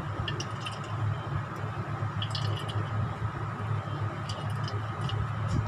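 Steel spoon pressing grated cucumber against a steel strainer, squishing out its juice, with short metal scrapes and clicks now and then over a steady low hum.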